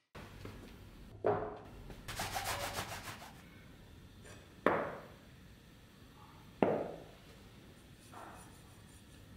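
Hands handling and rubbing a bare steel knife blade on a wooden workbench: a stretch of scratchy rubbing, and three sharp knocks as the blade is set down and moved.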